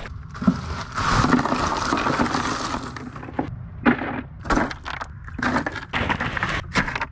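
Ice cubes crunching and clinking as they are piled into a cooler over freshly caught speckled trout: a rush of ice for a couple of seconds, then a series of separate crunches and clinks.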